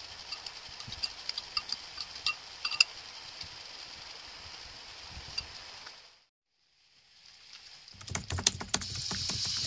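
Light clinks and taps of egg-soaked bread slices being lifted from a bowl and stacked on a plate, over a faint steady hiss. After a brief dropout about six seconds in, margarine goes into a hot wok on a gas burner: a run of crackling clicks, then a louder steady sizzle near the end.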